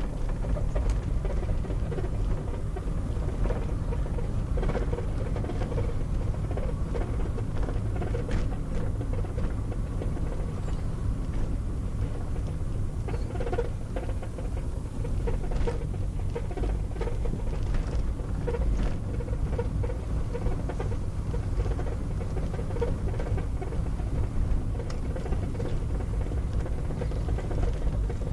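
Car cabin noise while driving: a steady low rumble of engine and road, with small rattles and ticks over it.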